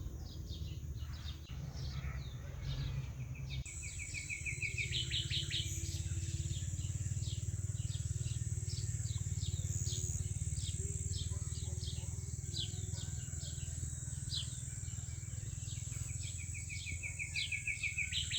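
Songbirds chirping in many quick falling notes, with two fast trills, one early and one near the end, over a steady high insect buzz that sets in a few seconds in and a continuous low rumble.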